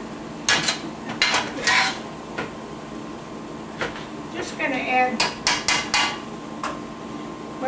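Metal spoon stirring cabbage in a stainless steel pot, clanking against the pot's sides again and again, with a quick run of four or five clanks about five seconds in.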